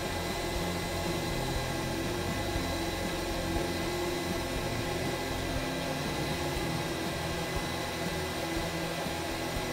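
Exhaust fan of a soldering fume hood built from an old robot vacuum, running steadily and drawing solder smoke away: a constant rush of air with a thin high whine.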